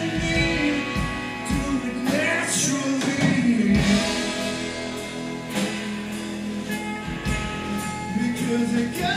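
Live rock band playing: acoustic and electric guitars, bass guitar and drums with cymbals, and a voice singing over them.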